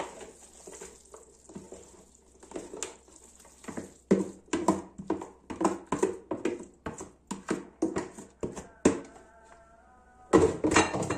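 A hand scraping sticky raw minced-meat topping out of one plastic bowl into another, a run of soft wet scrapes and slaps about two a second. Background music comes in near the end, along with a louder knock.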